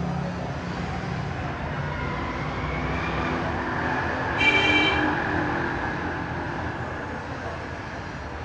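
Steady background road-traffic noise, with a short horn toot about halfway through.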